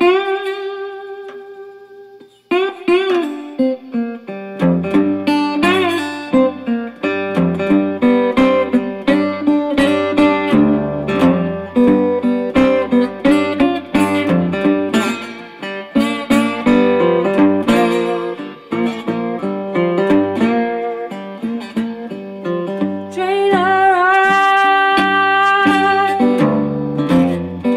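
Resonator guitar played solo in a fingerpicked blues style, with a picked bass line under the melody. An opening note rings out and fades over the first two seconds before the picking starts, and some longer notes bend near the end.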